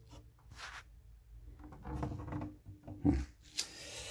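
Handling noise from a plastic-cased manual typewriter being moved and looked over: a few soft rubs and scrapes, a dull knock about three seconds in, then a short hiss near the end.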